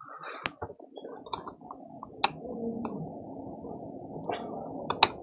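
Faint room noise with several sharp clicks, the loudest about half a second in, just past the middle and near the end.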